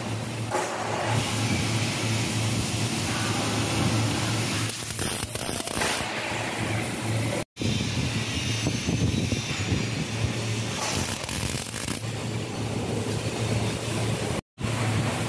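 MIG welder tack-welding steel flat bars onto a grating frame: the welding arc runs in spells over a steady low hum. The sound drops out suddenly and briefly twice.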